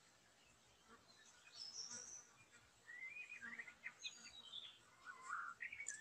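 White-rumped shama singing faintly: varied whistled and warbled phrases, one high note about 1.5 s in, then a busier run of rising and falling phrases from about three seconds on.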